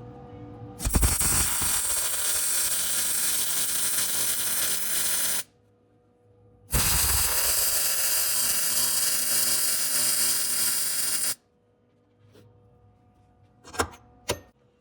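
Welding arc on sheet-metal floor pan patch: two runs of about four and a half seconds each, a steady crackling sizzle like frying bacon, with a short pause between. A few sharp clicks near the end.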